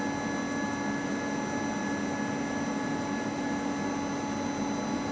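CNC lathe running with its spindle turning at about 600 rpm: a steady machine hum with several constant whining tones.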